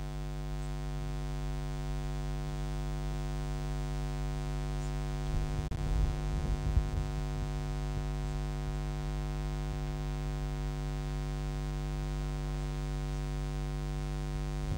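Steady electrical mains hum with a stack of even overtones, with a few low thumps about six seconds in.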